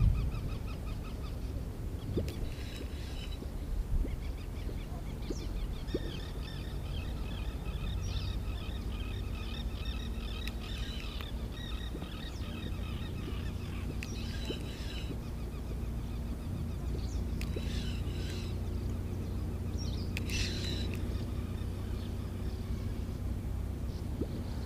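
Animal calls in rapid pulsed series, in one long run from about a quarter of the way in and then in short bouts, over a low steady rumble.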